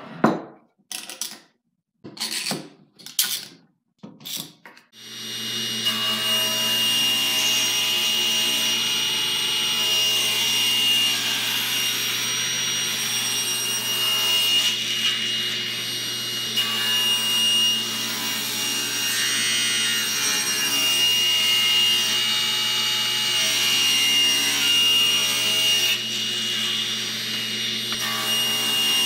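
A few knocks of a wooden board being handled on a workbench, then a table saw starts up about five seconds in and runs steadily while cutting kerfs in a board.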